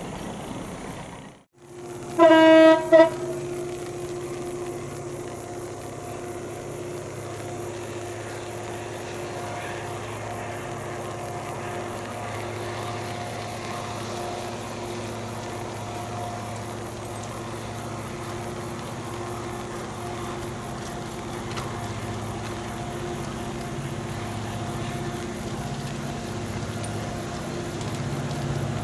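Locomotive air horn sounding two short blasts about two seconds in, then the steady running of CC 205 diesel-electric locomotives hauling a long coal train, growing louder towards the end as the train approaches.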